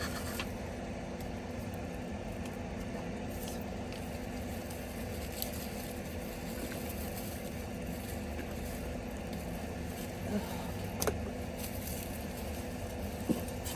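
A steady low mechanical hum, like a motor running, with a few faint short clicks and rustles scattered through it.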